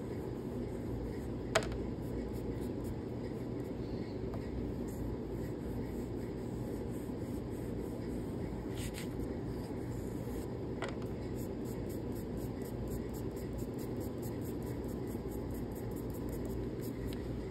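Soft scratching of a chalk pastel stick rubbed on paper in short repeated strokes, over a steady low room hum, with one sharp click about a second and a half in.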